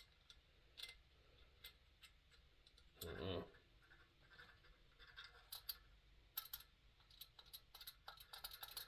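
Faint scattered metal clicks and scratches as the generator and its cleaning-needle hook are worked into a Coleman 220J lantern's valve assembly, growing busier in the second half. A brief low mumble comes about 3 seconds in.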